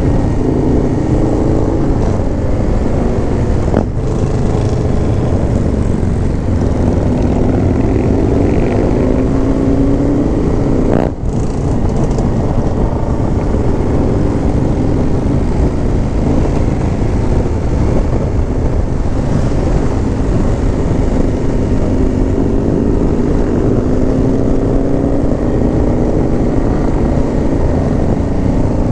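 Indian V-twin motorcycle engine running at road speed through curves, its pitch rising and falling repeatedly with the throttle, over a steady rush of wind noise. Two sharp clicks cut through, one a few seconds in and one near the middle.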